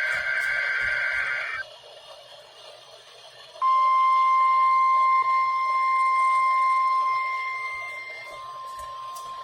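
NOAA Weather Radio test signal. A raspy digital SAME header burst ends about a second and a half in. After a pause of about two seconds, the steady single-pitch 1050 Hz warning alarm tone comes on and holds, growing somewhat weaker about halfway through.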